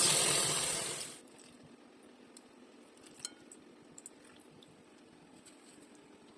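Water running from a tap, fading and stopping about a second in. After it come faint, scattered small clicks and taps.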